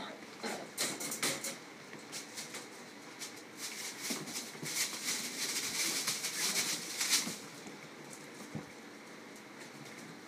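Puppies scampering and play-wrestling on a wooden floor: a quick, uneven patter of claws and scuffling, busiest in the middle of the stretch.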